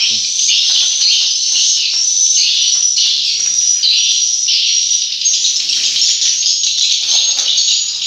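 Edible-nest swiftlets twittering: a dense, unbroken, high-pitched chirping chorus.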